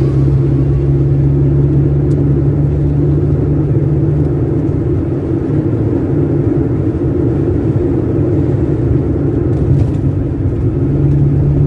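Steady low rumble of engine and tyre noise inside a Honda City Type Z's cabin as it cruises at highway speed.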